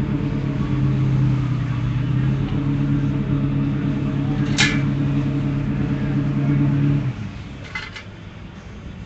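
An engine runs at a steady speed, then shuts off abruptly about seven seconds in. There is a sharp click midway and a couple of light clicks after the engine stops.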